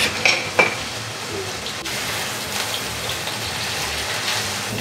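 Ground beef and onion sizzling steadily in their rendered fat in a frying pan, with a few short clicks in the first second.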